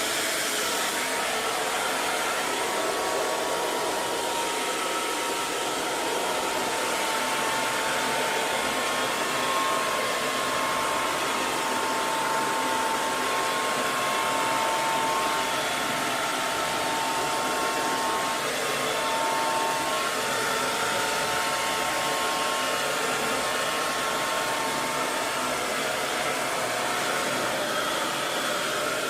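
Hair dryer running steadily: an even blowing hiss with a faint whine near 1 kHz that wavers in and out.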